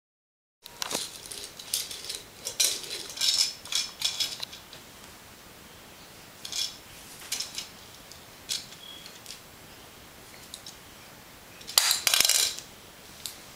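A small hard toy ball clattering and rattling on a hardwood floor as it is batted about. The clicks come in quick clusters over the first few seconds, then single clicks now and then, and a loud burst near the end.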